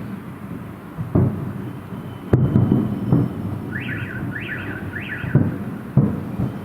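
Fireworks going off in a salute display: several sharp booms with echoing tails, the loudest about two seconds in. Midway, an electronic alarm warbles three times.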